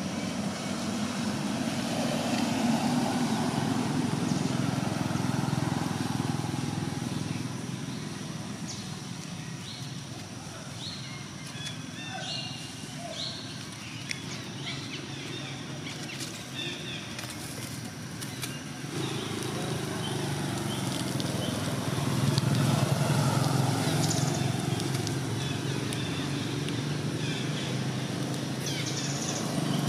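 Outdoor background rumble, steady and low, swelling in the first few seconds and again in the last third, with a scatter of short high chirps around the middle.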